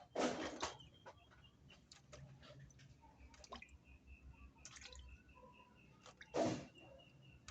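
Raw chicken meat being washed by hand in water: two short splashes, one just after the start and one near the end, with small drips and wet squishes between them.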